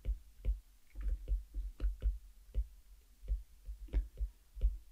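Stylus tapping and clicking on a tablet screen during handwriting: a string of irregular light clicks with dull thuds, about three a second.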